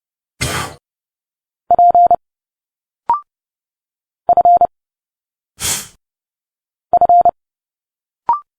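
Morse code sent at 30 words per minute as a steady beeping tone: three letters, each a quick cluster of dits and dahs. Between the letters come short spoken letter sounds, as a letter sounds inside a word: two breathy hisses and two brief clipped sounds.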